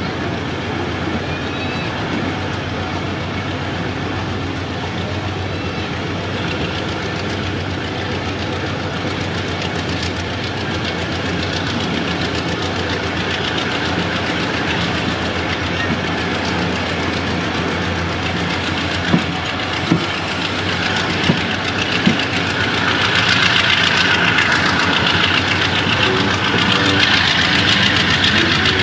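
Diesel locomotive engine running steadily at the head of a passenger train, heard from on board. A few sharp clicks come a little past the middle, and a louder, higher-pitched rush builds near the end.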